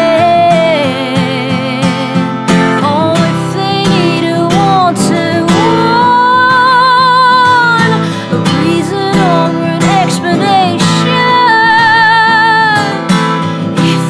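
A woman singing over a strummed acoustic guitar, holding long notes with vibrato around the middle and again near the end.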